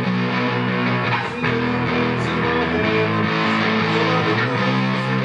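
Background music: a guitar-led track with a steady strum.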